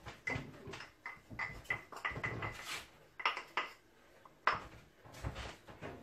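Wooden hand-twisted pepper mill grinding peppercorns: a run of short crunching clicks, about three a second, as the top is turned. A sharp knock comes about three-quarters of the way through, followed by a few more clicks.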